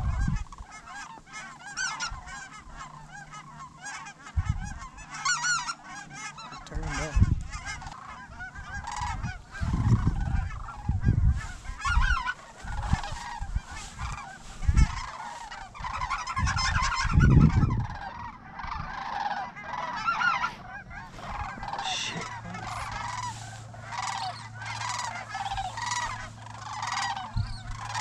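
A flock of geese honking overhead, many overlapping calls throughout. Low rumbles on the microphone come now and then.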